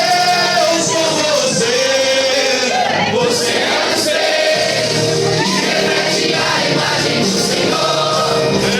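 Gospel worship song: voices singing over musical accompaniment.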